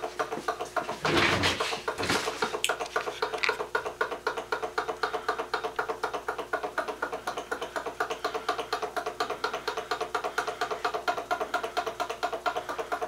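Small Louis Heinrici hot air (Stirling) engine from about 1885 running steadily, freshly started: a quick, even mechanical beat from its piston and crank linkage with a steady hum under it. A couple of louder knocks come about one and two seconds in.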